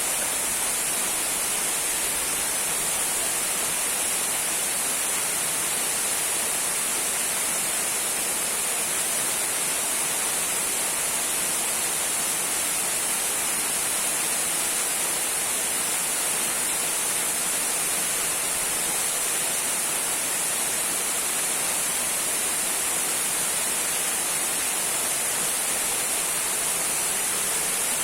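Small waterfall trickling: falling water making a steady, even hiss that does not change.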